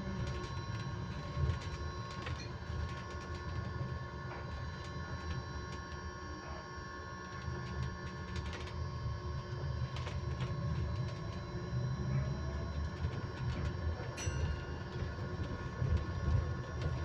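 Electric bus heard from inside, giving off several steady whining tones held at a constant pitch over low road rumble, with scattered small rattles and clicks.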